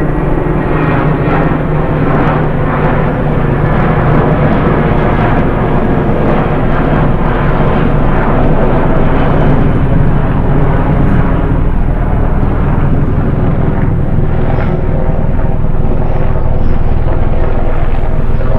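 Loud, steady drone of aircraft engines, a dense low rumble that holds without a break.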